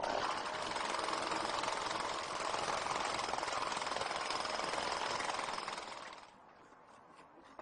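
Handheld vibratory tamper running with a rapid, steady rattle as its foot compacts fresh asphalt; it stops about six seconds in.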